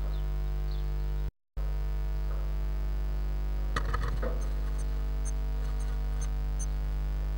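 Steady electrical hum from the nest-box camera's audio, which cuts out briefly just over a second in. About four seconds in, a blue tit lands on the dry grass and moss of the nest with a short scratchy rustle, and faint high ticks then repeat about twice a second.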